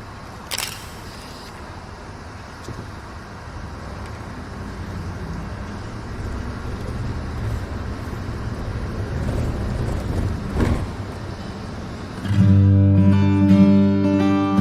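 A low, steady rumbling noise that slowly grows louder, with a few faint clicks, then acoustic guitar strumming starts about twelve seconds in as a song's intro begins.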